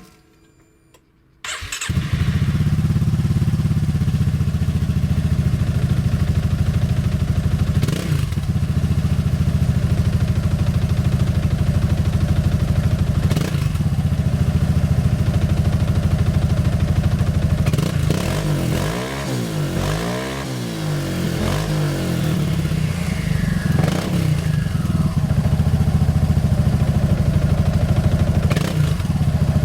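Honda SH300i scooter's single-cylinder four-stroke engine through a MIVV Stronger aftermarket exhaust. It starts abruptly about a second and a half in, then idles steadily with a few quick throttle blips and a run of repeated revs up and down around the middle.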